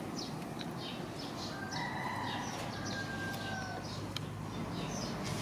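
A rooster crows once: one long call starting about one and a half seconds in and lasting about two seconds. Small birds chirp in short repeated notes throughout.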